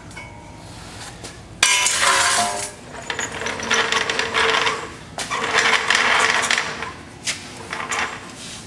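Harsh metallic shop noise from work on steel suspension brackets: three bursts of one to two seconds each, beginning suddenly about a second and a half in, full of clinks and rasping.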